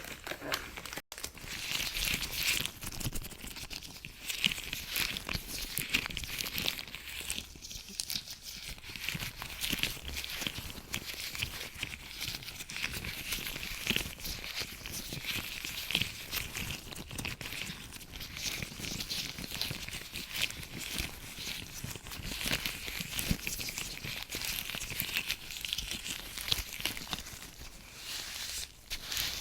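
Latex gloves rubbed and crinkled close to the microphone, a dense crackling rustle full of tiny clicks, broken by a brief gap about a second in.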